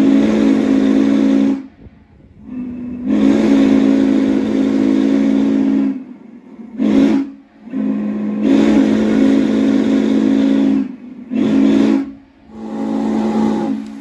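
Norfolk & Western J-class 611 steam locomotive's whistle blown by hand on its cord in about six blasts, some long and some short. Each blast is a deep, steady chord with a rush of steam hiss.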